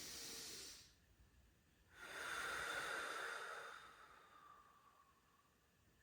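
A person's slow, deep breathing through a seated forward fold: the tail of an inhale that ends about a second in, then a longer, louder exhale that starts at about two seconds and fades away.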